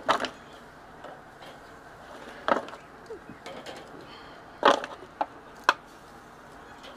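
Metal tongs clacking against a Weber kettle grill's grate and an aluminium foil pan as potatoes are lifted off: about five short, sharp clacks spread out, the loudest about two-thirds of the way through.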